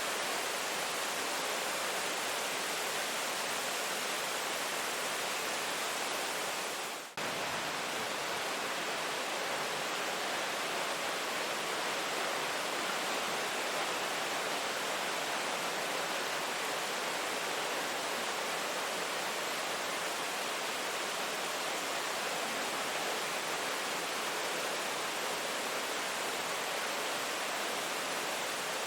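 Steady rain, an even hiss with no distinct drops, dipping briefly about seven seconds in before resuming.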